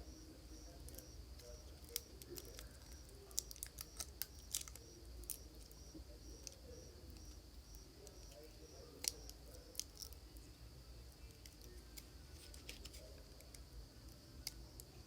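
Faint, scattered sharp clicks and taps of small parts and tools being handled at a workbench, over a faint high whine that pulses two or three times a second and a low hum.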